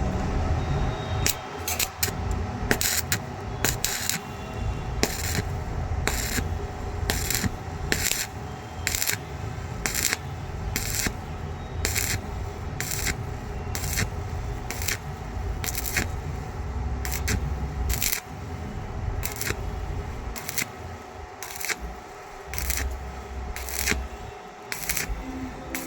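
Metalwork during electric welding: a run of short, sharp metallic clicks and crackles, about one or two a second, over a steady low hum.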